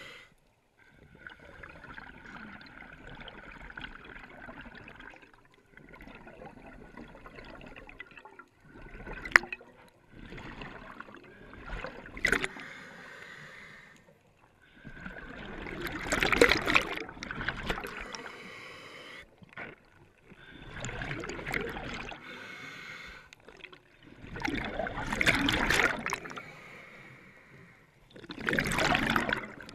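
Scuba regulator breathing underwater: hissing inhalations alternate with louder bursts of exhaled bubbles every few seconds. A couple of sharp clicks fall near the middle.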